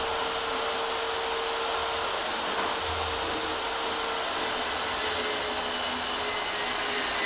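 Electric power tool motor running steadily, with a constant hum whose pitch dips slightly about four seconds in.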